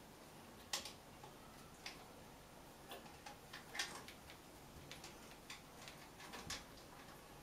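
Irregular light clicks and scratches of kittens' claws gripping the bark of tree branches as they climb, about a dozen at uneven spacing, the sharpest nearly a second in and just before the middle.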